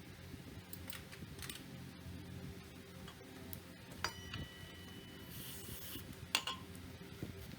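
Metal tools and brake parts clinking and tapping now and then; one knock about four seconds in rings briefly like struck metal. A steady low hum runs underneath.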